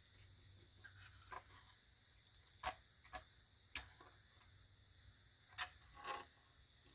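Quiet handling of a refrigerator control circuit board, with a handful of short, light clicks and taps as fingers move the board and push a new resistor's wire leads through its holes.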